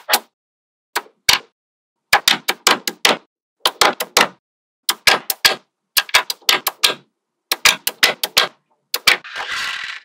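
Small magnetic balls clicking and snapping together in quick clusters of sharp clicks, with silent gaps between the clusters. Near the end comes a brief rattling rush as balls slide or roll together.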